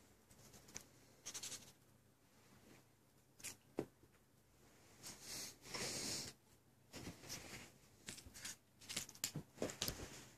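Light scratching and rustling from a cat playing on carpet and bedding, in scattered short bursts with a few sharp taps, busiest near the end.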